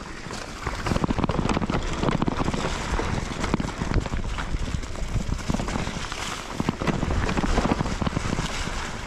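Wind buffeting the microphone of a camera riding on a mountain bike, over the bike's rattling and many small knocks as it runs down a rough trail.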